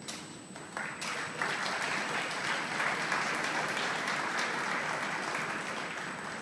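Audience applauding: scattered claps begin about a second in, swell into steady applause, then ease off slightly toward the end.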